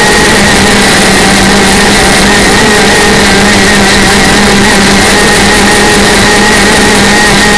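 125cc racing hydroplane's two-stroke engine running flat out at a steady high pitch, very loud, with water and wind noise rushing past underneath.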